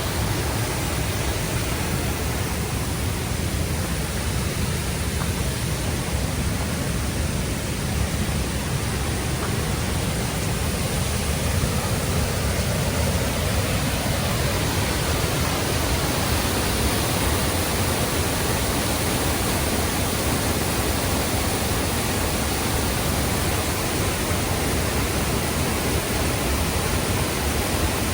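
Waterfall rushing: a steady, unbroken hiss of falling water with a low rumble underneath.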